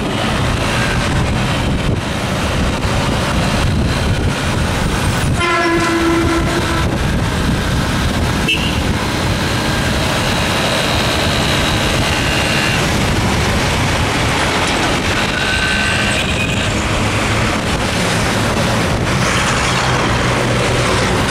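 Riding on a motorbike through city traffic: steady wind and road noise over a low engine rumble. Vehicle horns sound several times: a longer horn blast about six seconds in, and higher-pitched horn tones in the middle and around sixteen seconds in.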